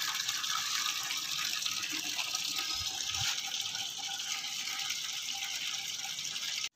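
Water pouring steadily from a plastic jug into the soil of clay flowerpots, with a continuous splashing. It cuts off suddenly just before the end.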